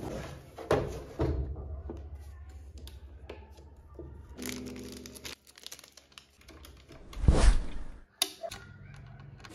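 Handling noises from unpacking and assembling a 3D printer: foam packing rubbing, and plastic and metal parts knocking and clicking. A louder thump comes about seven seconds in, followed by a sharp click.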